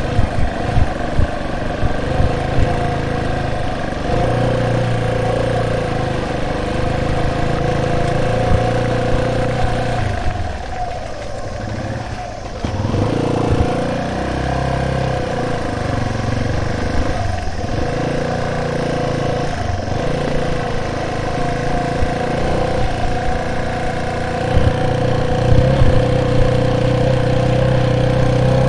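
A vehicle's engine running at a steady pace. It eases off and quietens between about 10 and 13 seconds in, then picks up again. There are a few low thumps in the first few seconds.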